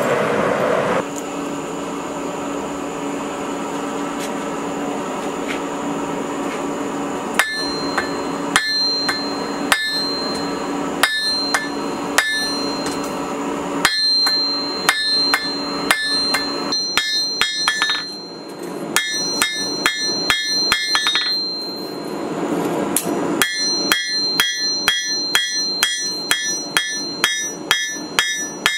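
Hand hammer forging a spring-steel knife blade on an anvil, each blow ringing. The blows begin several seconds in, spaced about a second apart, then come in quicker runs broken by short pauses.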